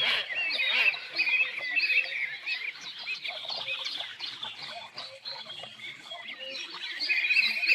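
Several songbirds singing and chirping at once, a dense chorus of overlapping short calls and trills, louder near the end.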